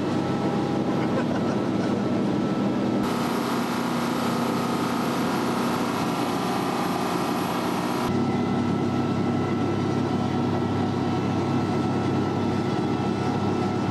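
Fishing boat's engine running steadily, a constant low drone. Extra hiss joins it between about three and eight seconds in.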